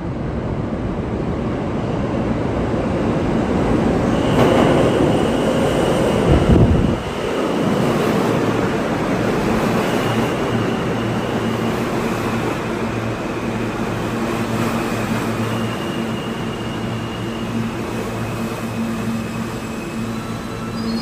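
New York City subway train on the G line's Crosstown tracks running through the station. It rumbles steadily with a steady motor hum, and faint high wheel squeals come and go. The rumble swells to a brief, very loud low burst about six and a half seconds in.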